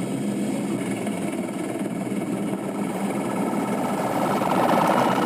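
Steady drone of a police helicopter's engine and rotors, heard from on board, swelling a little near the end.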